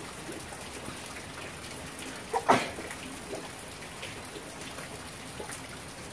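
Steady background hiss with faint scattered ticks, broken by one short, loud double sound about two and a half seconds in.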